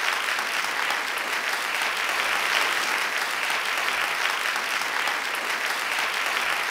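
A crowd applauding steadily, a dense patter of many hands clapping at an even level.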